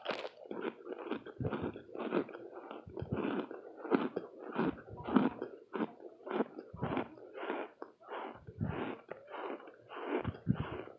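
Someone chewing hard, crunchy oven-baked Argo laundry starch chunks: a sharp bite at the start, then steady crunching at about two chews a second.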